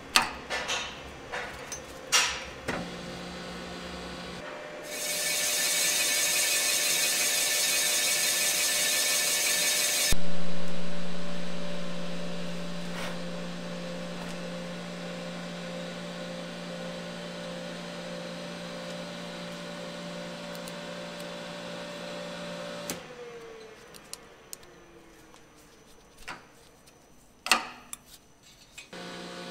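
Cylinder boring bar boring a repair sleeve in an AMC 258 straight-six block. It runs with a steady hum, and from about five to ten seconds in there is a loud hissing scrape. Near the end the spindle winds down with a falling pitch, followed by a few handling clicks.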